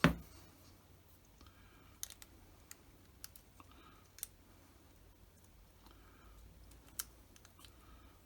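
Hands handling small glued model parts: a sharp knock at the start, then a few scattered light clicks and taps.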